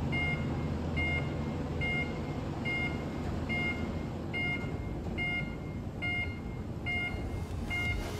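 Electric roll-up shutter opening: a short two-tone warning beep repeats a little faster than once a second over a steady low rumble of the shutter going up. The beeps stop near the end.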